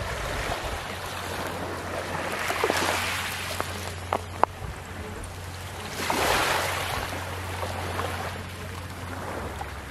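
Small, gentle waves washing over a shore of coral rubble and pebbles, swelling twice, about two and a half seconds in and again about six seconds in. A few sharp clicks come near the middle.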